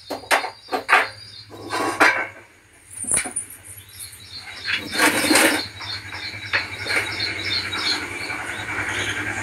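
Metal kitchen vessels and a plastic bucket being handled, with a few clinks and knocks in the first second and short noisy rushes around two and five seconds in. From about four seconds in, a rapid run of high chirps, about four a second, sounds over a low steady hum.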